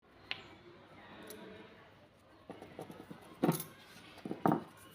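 Brittle baked clay pot pieces crunching in short, crackling bursts, the loudest about three and a half and four and a half seconds in.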